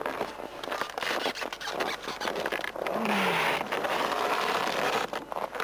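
Close scraping and rustling of a snowboard binding, boot and clothing being handled, with many small clicks; it grows louder and denser about three seconds in.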